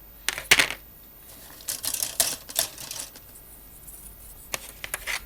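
Hard plastic model-kit parts and sprues clicking and clattering as they are handled: a few sharp clicks about half a second in, a quick run of them around two seconds in, and more near the end.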